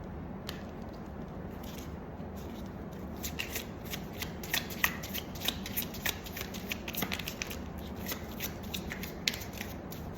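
Tarot cards being shuffled and handled, a fast irregular run of light card clicks and flicks that starts about three seconds in, over a low steady room hum.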